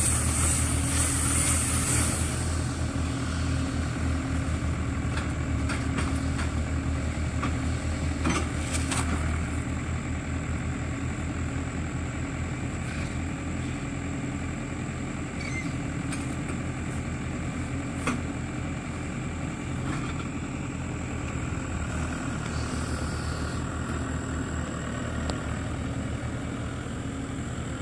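Farm tractor engine running steadily, slowly fading as it moves off, with a few light clicks.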